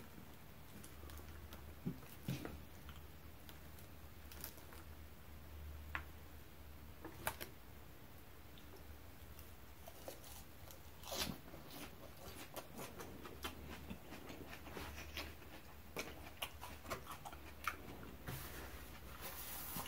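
Close, quiet chewing and mouth sounds of a man eating, with scattered clicks and taps of chopsticks and a spoon against the food containers: a busier cluster about eleven seconds in and more near the end. A low steady hum runs underneath.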